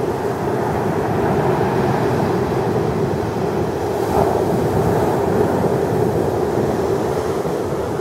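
Large surf from offshore storms breaking, a continuous loud rush of noise, with wind buffeting the microphone.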